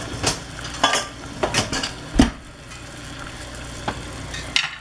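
An egg sizzling steadily in a cast iron skillet, with several clattering knocks from kitchen utensils being handled and one heavier thump about two seconds in.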